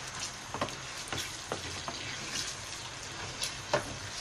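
Minced meat frying in ghee in a kadai, sizzling steadily, while a spatula stirs it and knocks and scrapes against the pan a few times.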